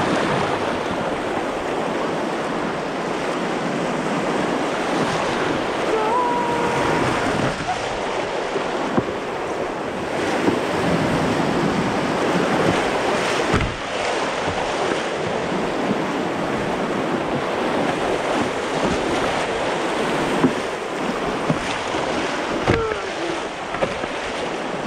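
Steady rushing of river whitewater around an open canoe running a rapid, with wind buffeting the microphone. A few sharp knocks stand out, one about fourteen seconds in and two more near the end.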